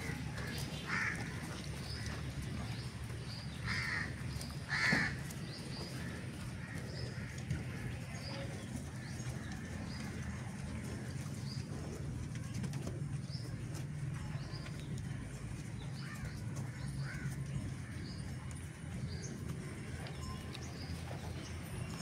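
Small birds chirping over and over, with a few louder calls in the first five seconds, over a steady low hum.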